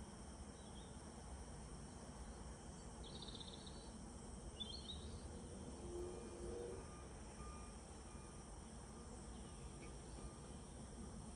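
Quiet workshop room tone: a steady low hum and faint hiss, with two brief faint high chirps a few seconds in.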